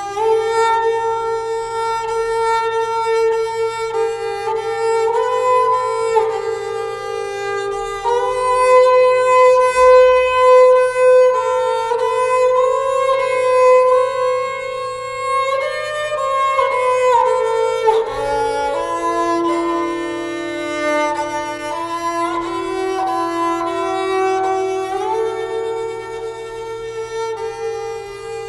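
Instrumental background music: a slow melody on a bowed string instrument like a violin, with long held notes that slide from one pitch to the next.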